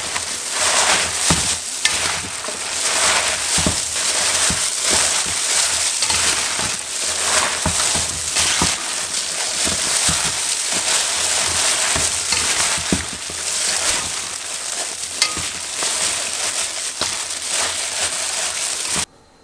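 Food sizzling in a frying pan, with scattered clicks and scrapes of a utensil stirring it; the sizzle cuts off abruptly near the end.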